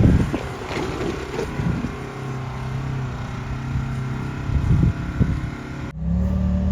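Side-by-side UTV engine running, with wind buffeting the microphone; about six seconds in the sound cuts abruptly to a louder, steady engine drone.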